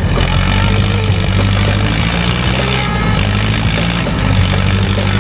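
A vehicle engine running steadily at a low, even pitch, like an off-road vehicle idling.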